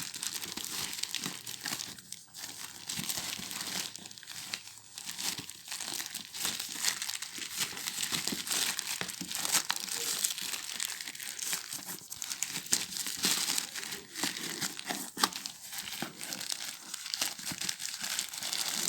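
Shoe packaging being handled and unwrapped: steady, irregular crinkling and rustling of wrapping, with small tearing sounds.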